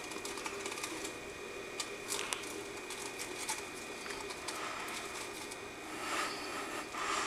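Scattered dry rustles and crackles as a toad struggles to swallow a large, still-moving moth on bark-mulch bedding, the louder bursts about two seconds in and near the end, over a faint steady hum.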